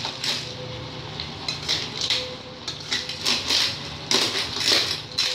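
Snail shells clattering and scraping against a stainless steel wok as they are stirred with a spoon, in irregular strokes, over a steady low hum.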